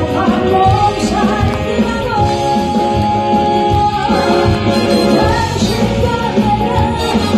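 A woman singing a Korean trot song live into a microphone over band accompaniment with a steady beat, holding one long note from about two seconds in until about four seconds in.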